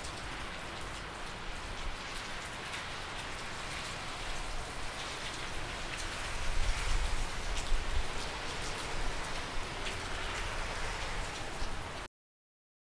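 Steady rain falling on wet pavement: an even hiss with scattered drop ticks, cutting off suddenly near the end.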